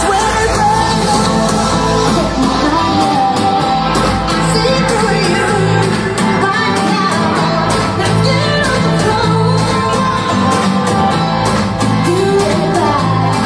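A song with singing and a steady bass line playing loudly through a JBL PartyBox On The Go portable Bluetooth party speaker, heard in the room.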